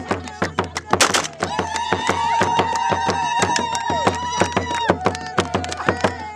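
A crowd clapping hands in a quick, steady rhythm, with a voice holding one long high call through the middle.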